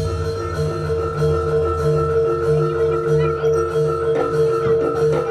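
Javanese jaranan gamelan music: ringing metallophones and a steady held high tone over an evenly pulsing drum beat.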